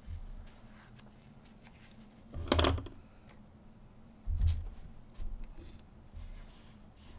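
Small craft items being set down and handled on a tabletop: a short clatter about two and a half seconds in, then a dull thump under two seconds later, with a few light taps and clicks.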